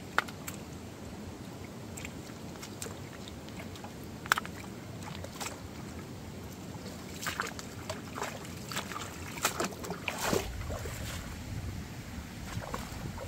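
Shallow stream water running over stones, with splashes and sharp clicks as a hand scoops and rubs in the water, most often toward the end. About ten seconds in, a low wind rumble sets in.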